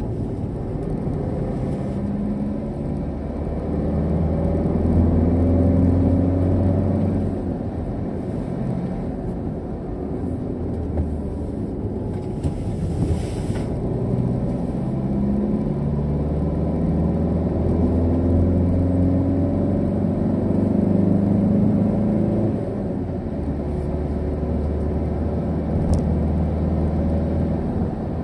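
Car engine and tyre noise heard from inside the cabin while driving, the engine pulling harder in two long stretches, a few seconds in and again in the middle. A brief rushing noise about halfway through.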